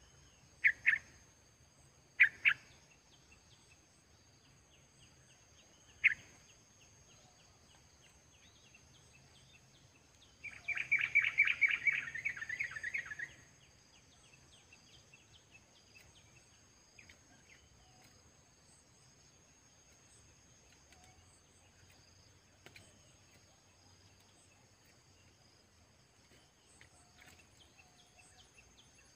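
Merbah kapur (olive-winged bulbul) calling: three short sharp calls in the first six seconds, then a loud, rapid run of bubbly notes lasting about three seconds, followed by a few faint calls.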